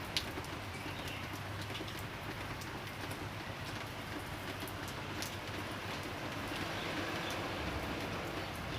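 Light drizzle falling steadily, with scattered drops ticking sharply on a surface and birds chirping faintly behind it.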